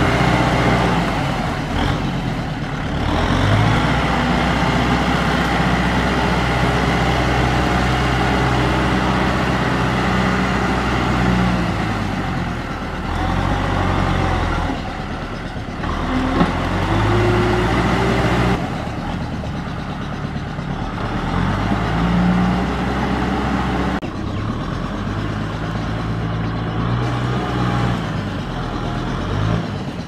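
Kubota M6040SU tractor's four-cylinder diesel engine working under load while driving a rear rotary tiller through flooded paddy mud. Its pitch shifts down and up several times as the load changes.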